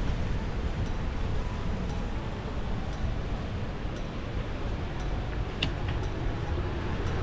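Low wind rumble on the microphone and street noise from riding a bicycle, with a few faint ticks and one sharper clink about five and a half seconds in.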